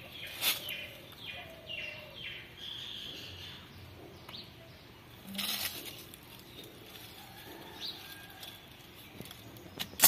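A bamboo stick and hands digging and scraping in soil and dry leaf litter, with scattered rustles and two louder scrapes, about half a second in and about five seconds in. Birds chirp in the background during the first few seconds.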